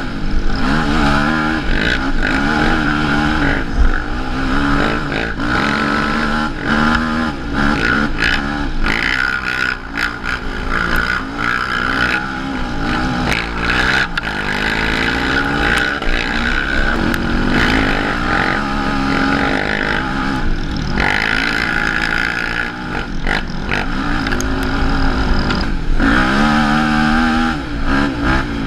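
Sport ATV engine being ridden hard, its pitch climbing and falling again and again with the throttle and gear changes, over a steady rattle of the machine on rough ground.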